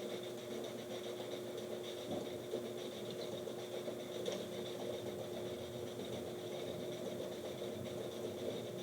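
A fan running steadily, giving a constant hum with one held tone, with a few faint ticks.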